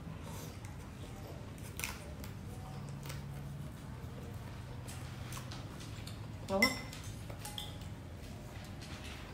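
Mukbang eating sounds while working through steamed shrimp: quiet chewing and sucking, with light clinks of chopsticks and a spoon against a glass bowl. A short, louder pitched sound comes about two-thirds of the way through, and a steady low hum runs underneath.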